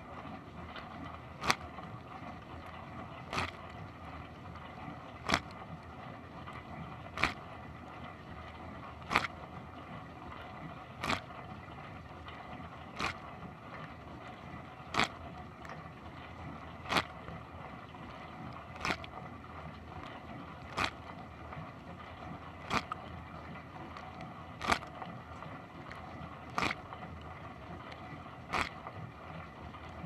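Dishwasher wash cycle heard from inside the tub: a steady rush of water spraying from the pump-fed spray arms, with a sharp splat about every two seconds as the rotating spray arm's jet sweeps past.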